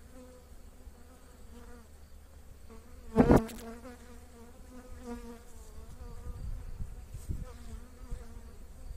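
Honeybees buzzing over a frame lifted from the hive: a steady hum with a wavering drone from bees flying close. A brief loud thump about three seconds in.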